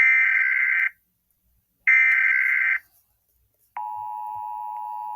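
Emergency Alert System SAME header tones: two loud, harsh digital data bursts, each about a second long and a second apart. Near the end a quieter, steady single-pitch weather-radio alert tone begins. Together they mark the start of a new alert broadcast.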